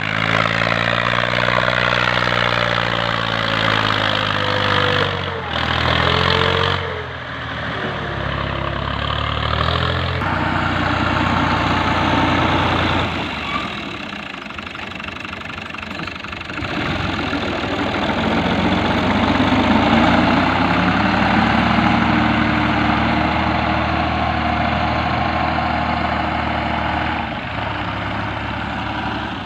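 Diesel farm tractor engines working under load, the engine speed rising and falling as they pull and push soil.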